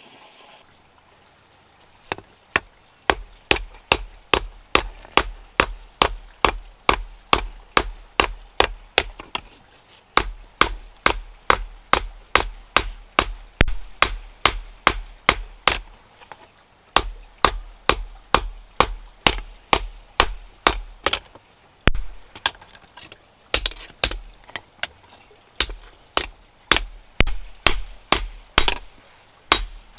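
Hand hammer forging metal, plausibly a chisel blank: steady blows about two a second, each with a short metallic ring, in runs broken by brief pauses.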